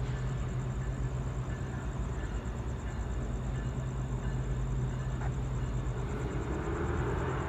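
Steady low rumble of an approaching Norfolk Southern freight train's diesel locomotives, building a little louder near the end.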